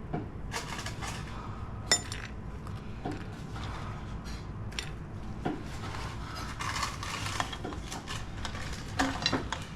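Utensils clinking and scraping against plates and dishes as food is served up, in scattered sharp clinks, the loudest about two seconds in and a few more near the end.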